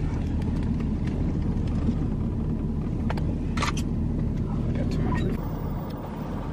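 Car engine running at idle, a steady low hum heard from inside the cabin, with a couple of light clicks about three seconds in.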